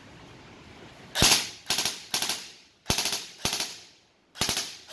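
Airsoft HK MP5K clone firing short fully automatic bursts: about seven quick bursts of rapid cracks, starting about a second in.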